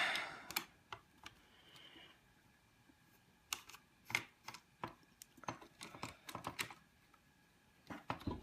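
Faint, irregular light clicks and taps of a screwdriver and small metal and plastic parts being handled inside a Mac Mini G4 while it is taken apart, with a short quiet gap about two seconds in and a denser run of ticks from the middle on.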